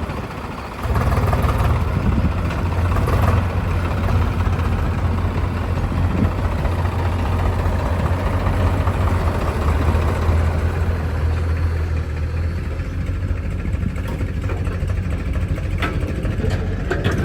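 Heavy diesel engine running steadily, growing louder about a second in.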